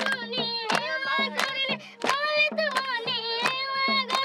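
A boy singing a folk song into a microphone, over a steady low drone and a regular beat, with the crowd clapping along.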